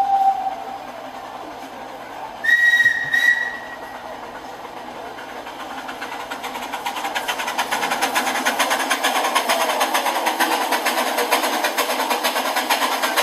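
Sound decoder of an HO-scale model steam locomotive playing through its small onboard speaker. A whistle ends just after the start, and a short whistle blast sounds about two and a half seconds in. From about six seconds, rhythmic steam chuffing grows steadily louder as the locomotive pulls away.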